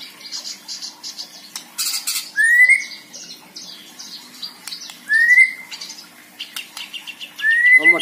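White-rumped shama singing a varied song: bursts of rapid, high chattering notes broken by a clear whistle that rises to a held note, three times about two and a half to three seconds apart.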